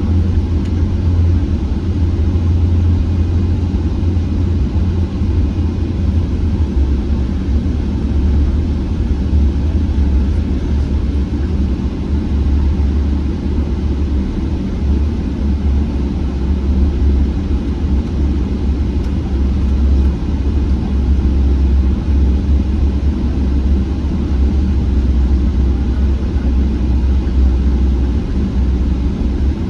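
Steady low rumble of a Boeing 777-300ER heard inside the passenger cabin, from its engines and the airframe.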